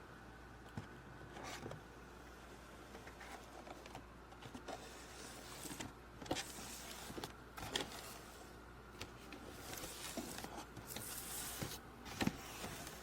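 Faint handling noises from a toy's cardboard box: scattered light taps and small clicks, with a few soft rustles.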